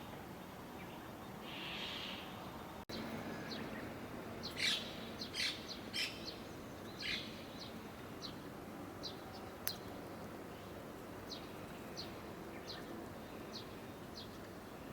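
Small birds chirping in a garden: a cluster of loud, sharp chirps a few seconds in, then fainter single high chirps every half second to a second.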